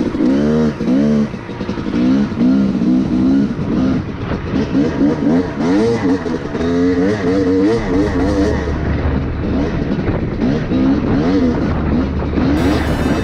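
Honda CR250R's two-stroke single-cylinder engine being ridden on a trail, revving up and down repeatedly as the throttle is opened and rolled off, its pitch rising and falling every second or so.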